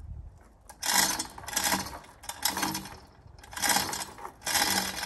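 Hand-operated hoist being hauled to lift a log, its chain and ratchet rattling in about five short pulls, roughly one a second.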